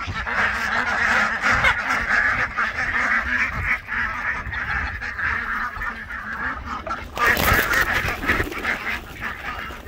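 A flock of domestic ducks quacking continuously, many calls overlapping. About seven seconds in there is a short, loud rustling burst.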